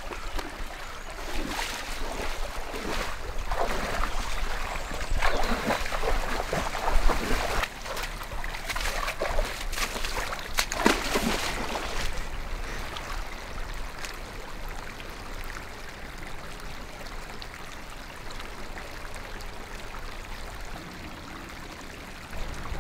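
A small stream trickling. Over the first twelve seconds there is rustling and footfalls through leaves and undergrowth, with a few sharper knocks. After that there is only the steady, quieter sound of the water.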